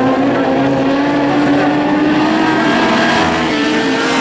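Lightning sprint cars racing on a dirt oval, their engines running hard in a steady note that drifts slightly up and down in pitch.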